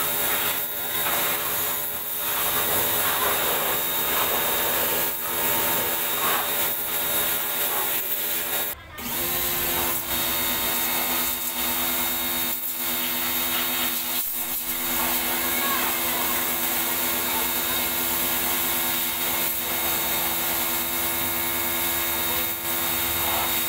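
Pressure washer running, its pump motor humming steadily under the hiss of the water jet as it washes down the brake drum and a removed wheel. It cuts out briefly about nine seconds in, then starts again with a steadier hum.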